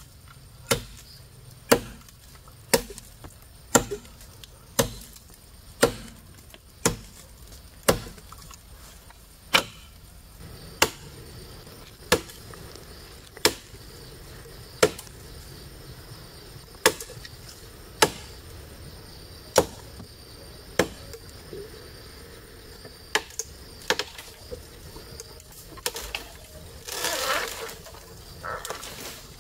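Wood being chopped with a blade: sharp, evenly paced strokes about once a second, spacing out a little after about ten seconds. A short rustling swell comes near the end.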